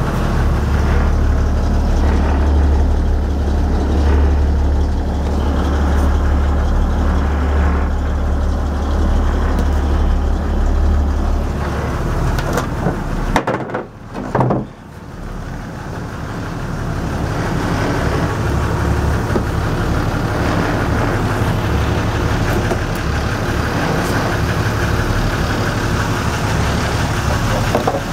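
An engine idling steadily, a loud, low, even drone. It drops away briefly about halfway through, then comes back.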